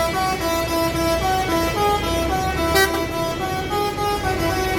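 Six-trumpet, 30-tone 'telolet' bus air horn playing a quick melody. Short notes step up and down in pitch, about four a second, with several trumpets sounding together.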